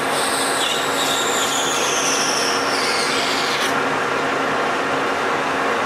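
Colchester metal lathe running under power with a steady gear hum while the tool takes a cut: a high whistle from the cut slides down in pitch and stops about three and a half seconds in.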